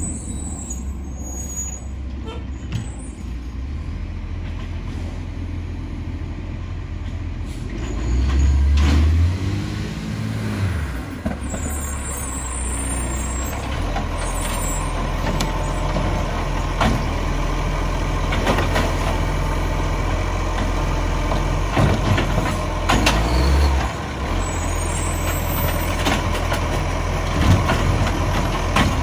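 Acco side-loader garbage truck's diesel engine running as the truck pulls up to the kerb, with the engine note rising and falling and short hisses of air brakes. Near the end the automated side arm clanks as it grips and starts lifting a wheelie bin.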